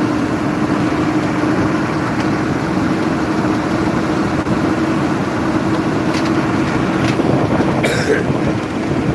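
Cab noise of a heavy vehicle driving at speed: a steady engine drone with a constant hum over road and wind noise.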